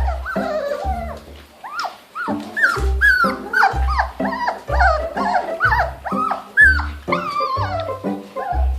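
Dalmatian puppies whimpering and yipping in many short high calls that bend up and down, over background music with a bass beat about once a second.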